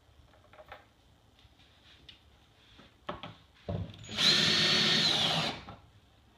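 Ryobi cordless drill driving a screw to fix a mending plate to the wooden bed frame: one steady high motor whine lasting about a second and a half, dipping in pitch as it stops. Before it come a few light taps and a couple of knocks from the screw and plate being handled.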